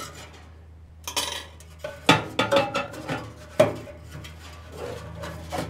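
Metal clinks and scrapes from the squirrel-cage blower fan and its sheet-metal housing in a Suburban NT-34SP RV furnace, as an Allen wrench works the fan's set screw and the fan is worked loose on the motor shaft. A short scrape comes about a second in, and sharp clicks come around two seconds and again around three and a half seconds in, over a low steady hum.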